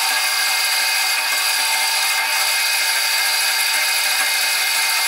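Axminster MCB115SHD metal-cutting bandsaw running steadily, its blade cutting through a 25 mm bright steel bar: an even, unbroken machine whine.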